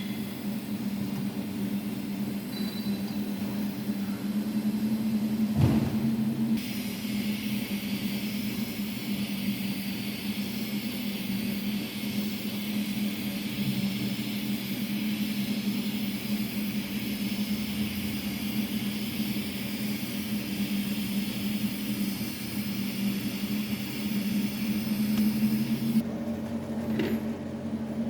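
Argon TIG welding on high-pressure pipe: the arc's steady high hiss starts just after a sharp knock about six seconds in and cuts off shortly before the end, over a steady low hum that runs throughout.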